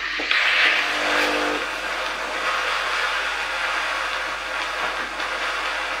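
Steam wand of a Krups XP 3440 espresso machine hissing steadily as it purges steam into a small cup after milk frothing, with the machine's pump humming briefly about a second in.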